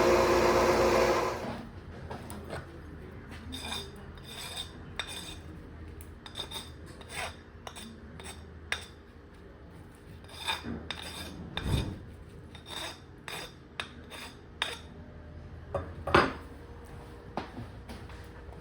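A milling machine runs for about a second and then shuts off, followed by scattered light metallic clinks and taps of metal parts and tools being handled.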